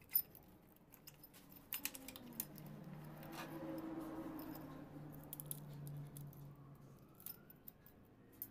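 Faint metallic clicks and taps from handling a Honda CD70's carburetor as the top cap is unscrewed and the throttle slide and spring are drawn out on the throttle cable. A low steady hum runs under the clicks for a few seconds in the middle.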